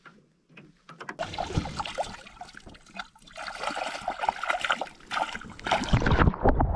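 Pond water splashing and sloshing against a camera held right at the surface, irregular and building, turning to a deeper rushing wash near the end as the water closes over it.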